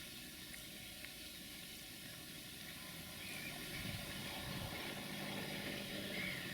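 Faint, steady outdoor hiss of a summer lakeside, with a low hum that grows slightly louder about three seconds in.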